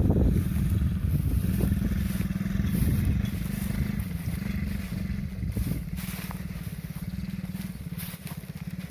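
Small 50cc children's ATV engine running, growing gradually fainter as it moves away.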